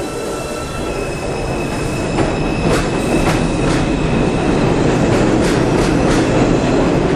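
Subway train running on the rails with a steady high whine and a run of sharp rail-joint clicks, growing a little louder over the first few seconds.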